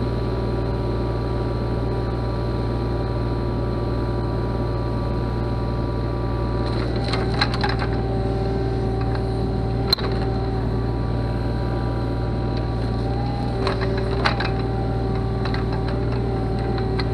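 Mini excavator's diesel engine and hydraulics running steadily under load, with a whine that shifts in pitch as the home-built ripper tooth pries at a tree stump. Roots crack and snap sharply a few times, about seven, ten and fourteen seconds in.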